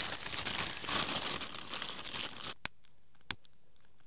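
Dry material being crumpled and rustled while a campfire is being lit, a dense crinkling that stops suddenly about two and a half seconds in. A few separate sharp clicks follow.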